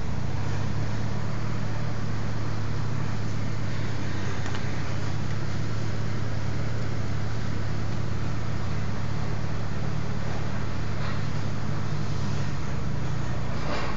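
A steady low hum with a constant hiss, unchanging throughout.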